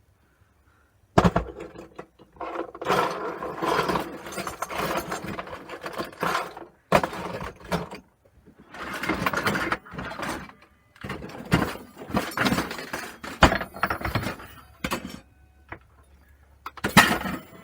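Old brass clock mechanisms clattering and clanking against each other as they are rummaged through and handled, in irregular rattles with sharp knocks.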